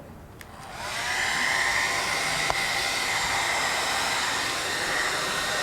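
Handheld hair dryer switched on about a second in, its motor spinning up and then running steadily with a high whine over the rushing air.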